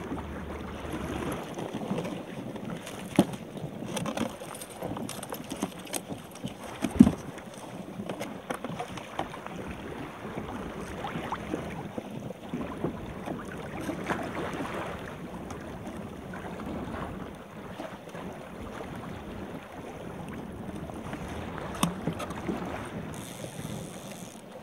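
Water rushing and slapping along a plastic sit-on-top kayak's hull, with wind buffeting the microphone. Now and then a sharp knock of gear handled on the deck, the loudest about seven seconds in.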